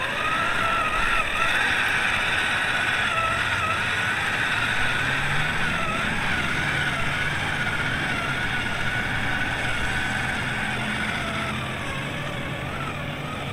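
Redcat Gen9 1/10-scale RC trail truck's electric motor and gear drive whining steadily while crawling through shallow water. The whine's pitch wavers up and down as the throttle is worked.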